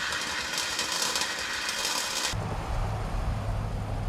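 A harsh rushing hiss with almost no low end for about two seconds, which cuts off abruptly. It gives way to a steady low hum from the 1982 C10's small-block Chevy V8 running, heard inside the cab.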